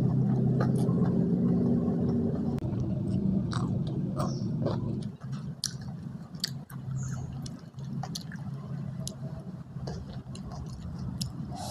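A person chewing food close to the microphone, with wet squishing sounds and small scattered mouth clicks. A low steady hum sits underneath for the first half and fades about five seconds in.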